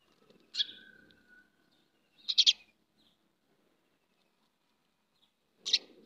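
House sparrows chirping: short, sharp, high calls, one about half a second in, a quick run of three a couple of seconds in, and one more near the end.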